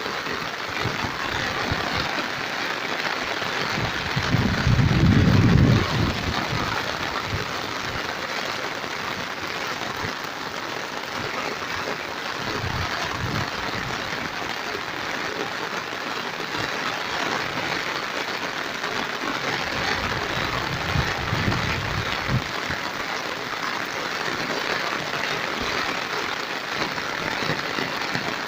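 Heavy rain pouring steadily, an even hiss of a downpour. A low rumble swells and fades about four seconds in, with fainter rumbles about halfway through and again a few seconds later.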